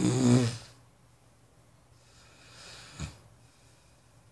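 A sleeping person snoring: one loud snore at the start, then a softer, breathy breath out and a short snort about three seconds in.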